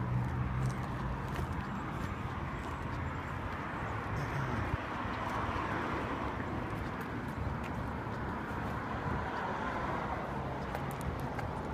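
Steady urban outdoor background noise, like distant road traffic, swelling about midway, with a low engine-like hum at the start and again near the end and a few faint ticks.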